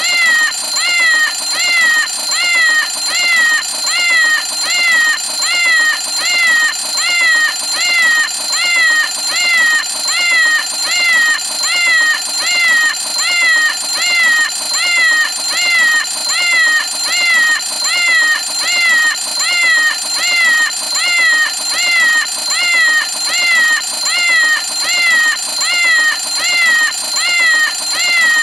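Cartoon cat alarm clock going off with a meow alarm: the same meow repeated evenly, a little more than once a second, each call falling in pitch, over a steady high tone.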